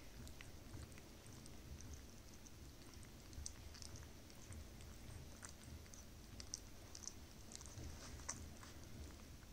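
A puppy lapping milk from a metal bowl: faint, irregular small clicks from its tongue and mouth.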